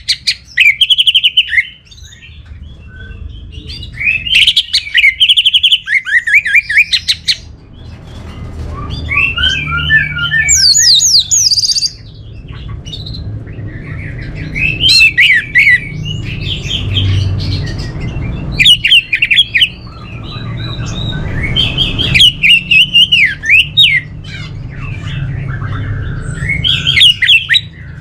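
Orange-headed thrush (anis merah) singing: loud, varied phrases of rapid whistles and trills, in bursts every few seconds with short pauses between, over a steady low hum.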